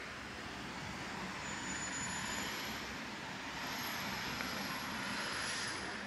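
Outdoor city traffic ambience: a motor vehicle going by, its noise swelling through the middle and easing near the end, with a thin high whine on top.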